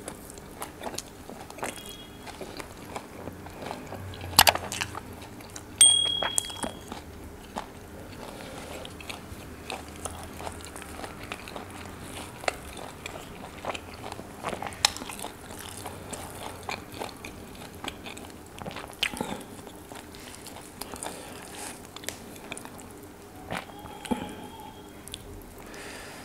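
Close-miked eating: a man biting and chewing butter kulcha with chicken afghani gravy, with wet mouth clicks and smacks. The sharpest, loudest clicks come about 4 and 6 seconds in.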